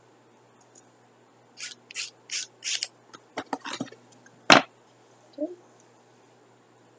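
A nail file rasping along the edge of a thin wooden puzzle piece in four quick strokes, cleaning off leftover bits where it was broken out of its sheet. Light clicks follow, then one sharp click about four and a half seconds in.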